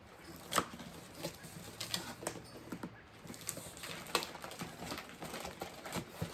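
Packaging being handled and opened: irregular crackles and clicks of plastic and cardboard, the sharpest about half a second in.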